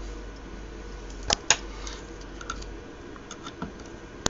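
A few separate sharp clicks and taps from handling equipment on a workbench, two louder ones close together about a second and a half in and lighter ones after, over a faint low hum.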